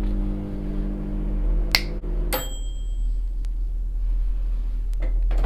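Microwave oven running with a steady hum, then a click about a second and a half in, and the hum stops with a single short electronic beep that marks the end of the heating cycle.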